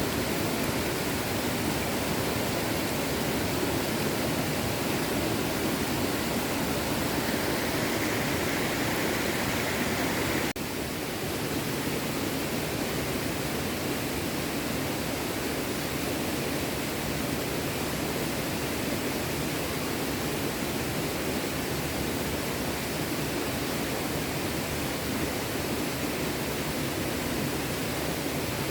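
A small stream flowing, with a steady rushing of water. It breaks off for a moment about ten seconds in, then carries on slightly quieter.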